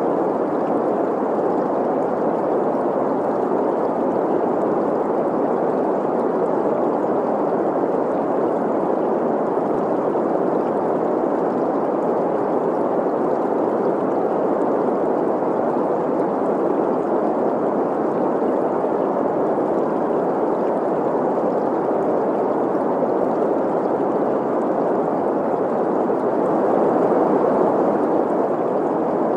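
Steady green noise, an even hiss centred in the middle range, with running stream water mixed in; it swells slightly near the end.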